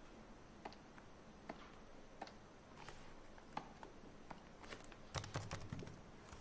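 Faint, irregular clicks of computer keys being typed, with a short quick run of keystrokes about five seconds in.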